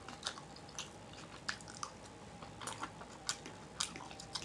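Chewing with wet lip smacks, mouthfuls of a Chipotle meal: irregular sharp smacks every few tenths of a second.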